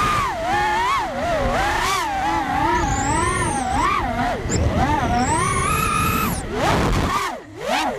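Racing quadcopter's electric motors whining, the pitch swinging up and down constantly with the throttle. Near the end the whine drops low and quiet for a moment, then picks up again.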